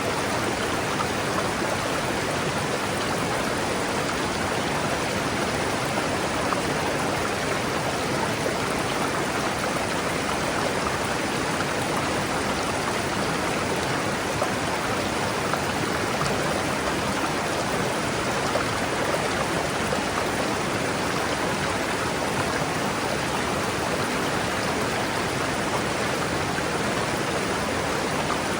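River water rushing over rocks: a steady, even rush with no breaks.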